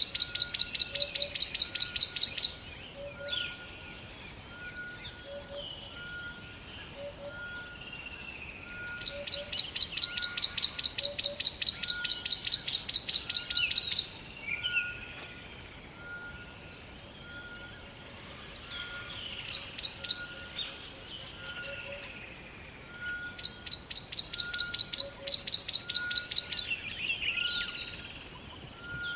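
Forest birdsong. Three long bursts of a loud, fast pulsing trill, at the start, about ten seconds in and about twenty-four seconds in, over many short falling chirps. A soft short note repeats about once a second underneath.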